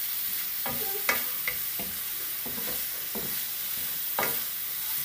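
Bean-sprout and vegetable stir-fry sizzling in a frying pan while being stirred and tossed with a wooden spoon: a steady sizzle with irregular scrapes and taps of the spoon against the pan.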